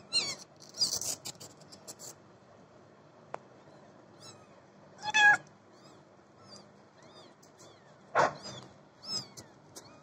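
Newborn kittens mewing: thin, high squeaks on and off, with louder pitched cries about five seconds in and again about eight seconds in. A brief scratchy rustle comes about a second in.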